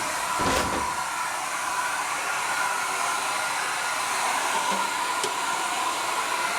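Handheld hair dryer on its highest setting blowing steadily, a whooshing hiss with a steady whine, used to heat-shrink plastic window insulation film. A brief low bump about half a second in.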